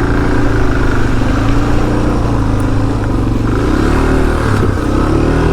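Single-cylinder 650 dual-sport motorcycle engine pulling under throttle through deep mud, its pitch wavering and rising and falling as the throttle is worked, most noticeably near the end.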